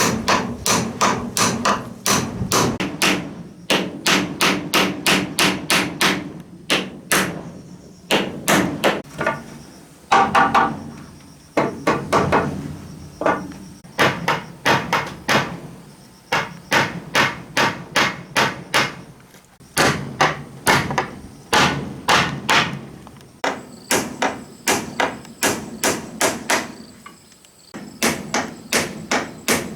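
Hammer striking wood in quick, even runs of about three blows a second, with short pauses between runs, as timber walls are built.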